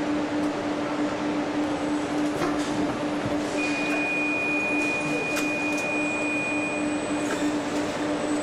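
Engine-block assembly line machinery running: a steady mechanical din with a constant low hum and a few light clicks. A thin high whine comes in midway and lasts about four seconds.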